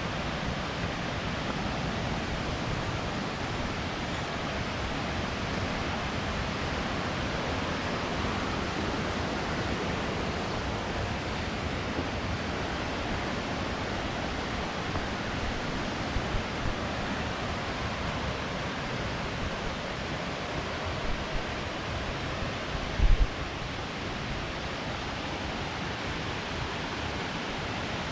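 Steady rushing of a waterfall, an even wash of water noise with no pitch to it. A few brief low thumps cut through it, the loudest about two-thirds of the way in.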